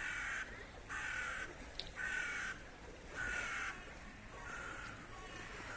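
A bird's harsh, repeated calls: four loud calls about a second apart, then several fainter ones.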